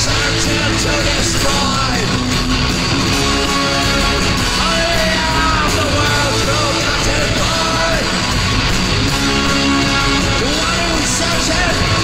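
Live punk rock band playing loudly: distorted electric guitars with bending notes over drums and bass, and a voice yelling at times.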